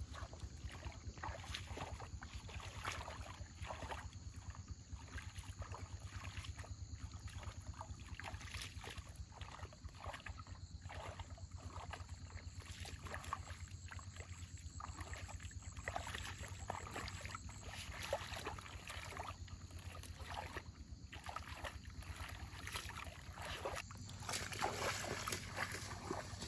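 Water splashing and sloshing in irregular strokes, busier and louder near the end, over a steady low hum.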